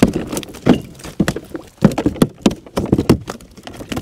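Irregular knocks, clicks and rattles as a freshly landed bluefish is handled and unhooked aboard a kayak.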